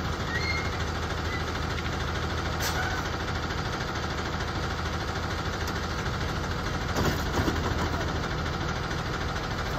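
School bus engine idling steadily with a low hum.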